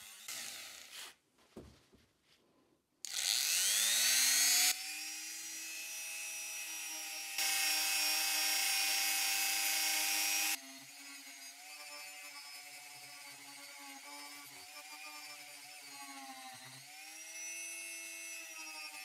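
A small high-speed rotary tool spins up with a rising whine about three seconds in and then runs at a steady high pitch. Its abrasive bit (wire cup brush, then sanding drum) hisses loudly in stretches as it grinds rust off steel. After an abrupt change it runs quieter while sanding, and the motor note sags briefly under load near the end.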